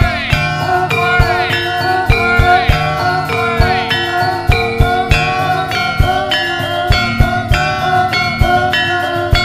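Javanese gamelan accompaniment for a jaran kepang horse dance: metallophones ringing steady notes over a quick, dense drum pattern. A few high sweeping notes fall in pitch during the first four seconds.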